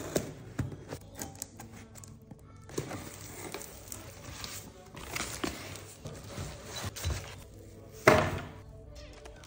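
Cardboard shipping box being cut open and unpacked by hand: scattered knocks, scrapes and rustles of cardboard flaps and packing. The loudest is a plastic rustle about eight seconds in, as bubble-wrapped items are lifted out. Background music plays underneath.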